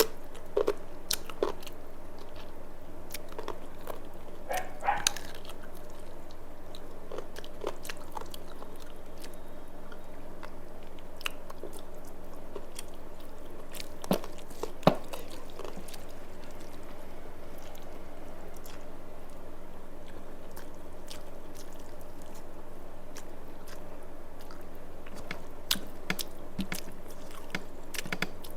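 A person chewing and eating a meal of rice and fish curry, with scattered wet smacks and clicks from the mouth; two sharper ones stand out about halfway through.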